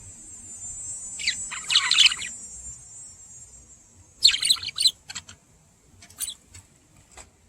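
Pet budgerigars chirping and chattering. A thin high trill runs through the first few seconds, with a quick chattering run about a second in. A burst of chirps follows about four seconds in, then a few short single chirps.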